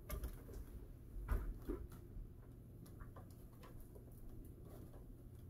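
Scattered light clicks and knocks, with one louder thump a little over a second in, over a steady low hum.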